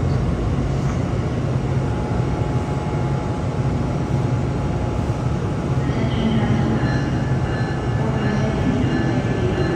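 GE P42DC diesel locomotive's V16 engine running steadily, with a constant low drone.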